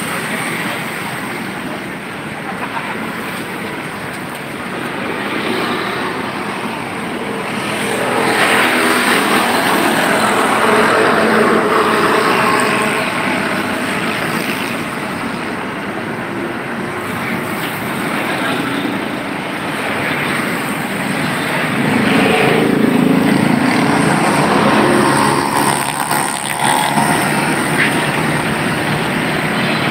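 Road traffic: motorcycles and cars passing on the road, with the noise swelling louder about eight seconds in and again about twenty-two seconds in as vehicles go by.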